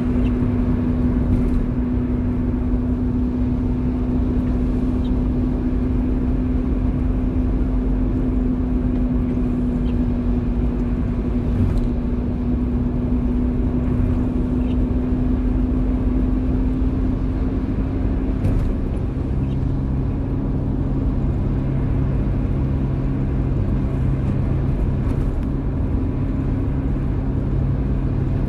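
A car driving in the rain: a steady rumble of tyres and road with rain noise over it, and an engine hum. About two-thirds of the way through, the hum drops to a lower pitch.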